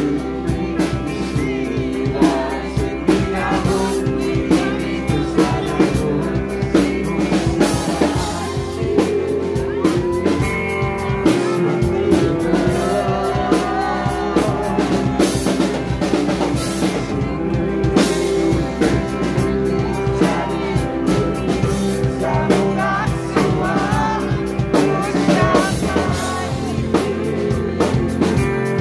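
Live rock band playing: electric guitars and a drum kit, with a man singing into the microphone.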